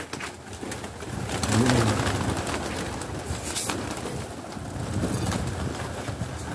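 A flock of feral pigeons cooing at low pitch, with the rustle and flutter of many wings as birds land and take off around scattered feed.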